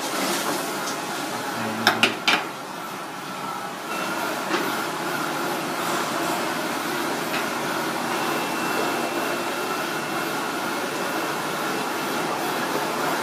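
Steady background noise and hum, with three quick sharp knocks about two seconds in and a lighter one a couple of seconds later.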